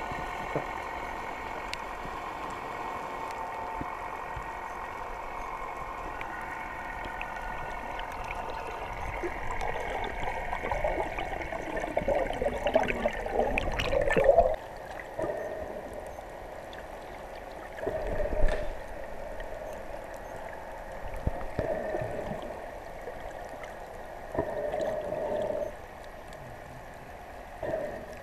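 Muffled underwater sound picked up by a submerged camera: water gurgling and sloshing around it, with several louder surges lasting about a second each in the second half.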